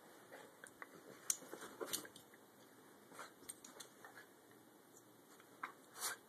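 Two small white terriers play-fighting, mouthing and snapping at each other, with scattered sharp jaw snaps and clicks and light scuffling. The loudest snaps come about a second in, near two seconds in and near the end.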